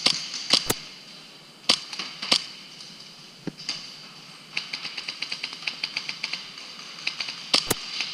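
Airsoft guns firing: scattered sharp cracks, then a rapid run of clicks at about nine a second about halfway through, and two louder cracks near the end.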